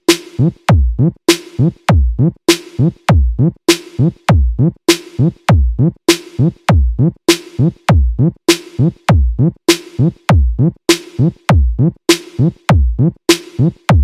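Electronic sound-check music built on a drum machine: a deep kick drum whose pitch drops on each hit, about every 0.6 s, with crisp clicks between the kicks and a steady held synth note underneath.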